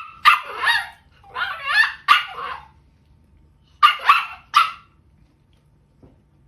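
A dog barking, a run of short, fairly high-pitched barks in three groups over about five seconds.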